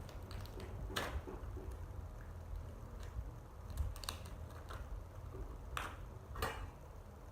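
Small pieces of nursing equipment being handled and put away: a scattering of light clicks and knocks, a few seconds apart, over a low steady hum.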